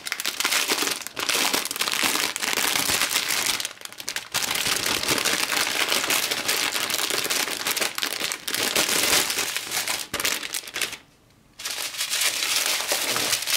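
Small plastic bags of diamond painting drills crinkling and rustling as they are handled, with short pauses about four and eleven seconds in.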